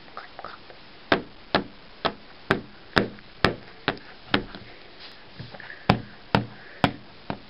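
A plastic model horse's hooves knocking on a hard surface as it is walked along, a clip-clop rhythm of about two sharp knocks a second, pausing briefly midway.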